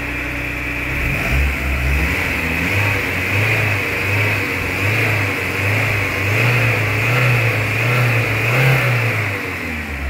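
Volkswagen AP 1.6 four-cylinder engine, warm and running on ethanol, revved by hand at the throttle linkage: the revs climb about a second in, hold up with a slight waver, then fall back to idle near the end. It runs quietly with no hydraulic lifter tapping, after a lifter repair that cured a lifter knock and low oil pressure.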